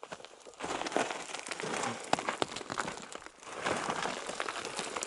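Footsteps crunching over loose gravel and rock, in irregular clusters of crunches and clicks about a second apart.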